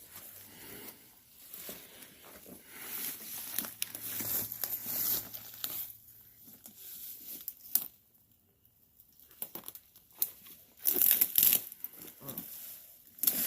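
Rustling and crackling of brush and leaves as people move on foot through dense overgrowth, in irregular bursts, with a quiet pause past the middle and louder rustles near the end.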